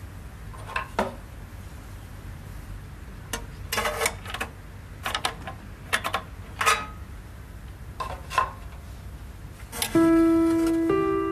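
An old pendulum wall clock being wound and set by hand: scattered metallic clicks and scrapes from the winding key and the hands being pushed round. About ten seconds in, clear sustained ringing notes begin, one roughly every second.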